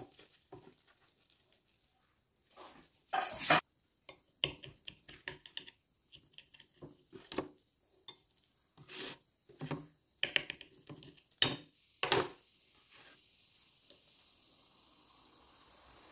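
Metal knife and fork on a glass plate, cutting into an egg omelette: a string of separate clinks and scrapes against the glass, the loudest about three seconds in and again around eleven and twelve seconds in.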